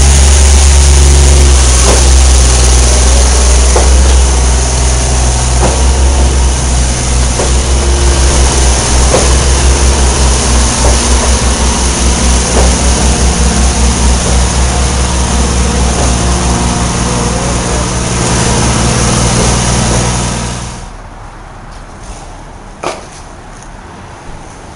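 Concrete pump's engine running loudly, with a regular knock roughly every two seconds, then shutting off about 21 seconds in.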